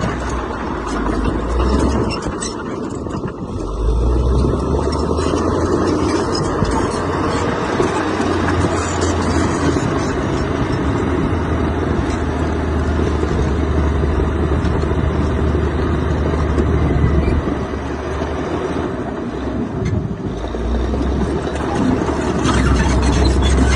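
Diesel engine of heavy earthmoving machinery running steadily, its deep low rumble easing off and swelling back twice as the load changes.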